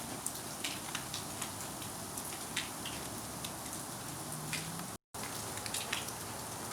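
Storm precipitation hitting surfaces: a steady hiss with scattered, irregular sharp ticks. The sound cuts out completely for a moment about five seconds in.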